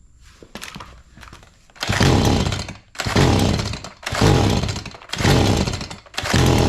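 Stihl MS 180 C two-stroke chainsaw engine being pull-started: it fires four times in bursts of about a second, each dying away, then catches and runs steadily near the end.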